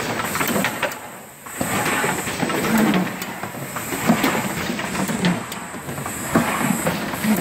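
Automatic carton forming machine, which folds corrugated boxes and glue-seals their bottoms, running with a busy, irregular clatter of clicks and knocks over a steady mechanical noise. The noise dips briefly about a second in.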